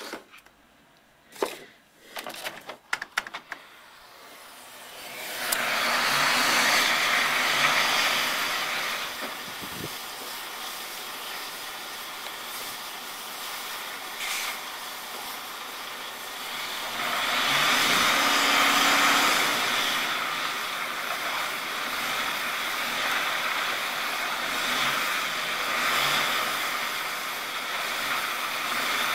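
Tractor-trailer stuck on ice, its engine revved while the drive wheels spin on the ice, making a steady hissing noise that swells and eases, loudest twice. A few clicks and knocks come first, in the opening seconds.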